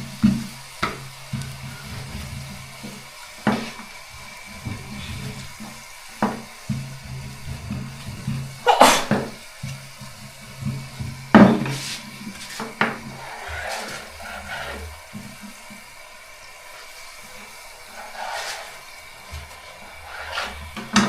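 Mandazi dough frying in hot cooking oil, a steady sizzle broken by irregular knocks and clicks of a utensil against the pan, the loudest about nine and eleven seconds in.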